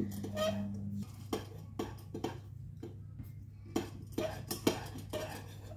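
A spoon clinking and scraping against a bowl as macaroni is stirred with water and cheese powder, in irregular knocks, over a low steady hum.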